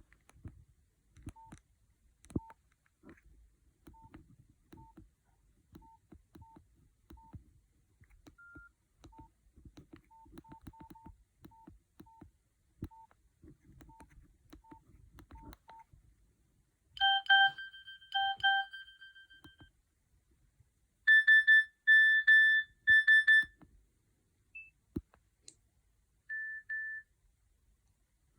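Nokia 5130 XpressMusic mobile phone: soft keypad clicks, many with a short single key beep, as buttons are pressed. About 17 seconds in comes a short pattern of electronic beeps from its speaker, then three loud beeps a few seconds later and one more near the end.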